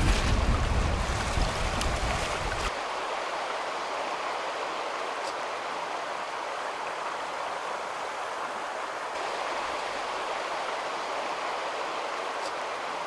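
Steady rush of flowing stream water. A low rumble sits under it for the first two to three seconds, then stops abruptly.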